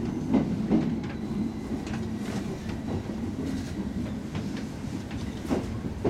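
JR East 701-series electric train heard from inside the car, running with a steady low rumble and its wheels clacking over rail joints: two sharp clacks near the start and another near the end.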